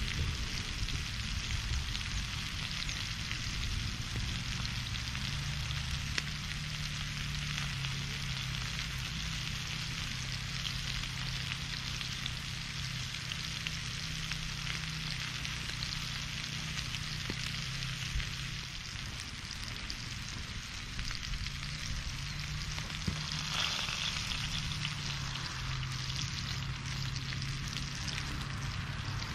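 Food frying, a steady sizzle with a few faint ticks, over a low steady hum.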